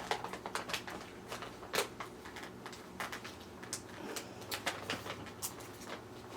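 Scattered light clicks and taps of kitchen items being handled at a counter, irregular and spread through the whole stretch, over a faint steady hum.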